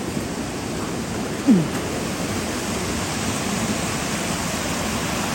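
Steady rushing of a fast-flowing river in full spate. About a second and a half in, one short sound falls in pitch over it.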